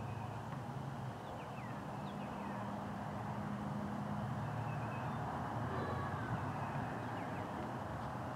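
Steady low engine hum of a motor vehicle running, with a few faint, thin, downward-sliding bird chirps now and then.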